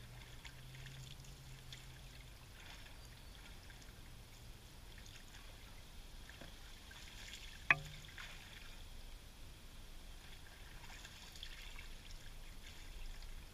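A magnet-fishing magnet being hauled in on its rope through lake water, faint, with scattered light clicks and one sharp click a little past halfway.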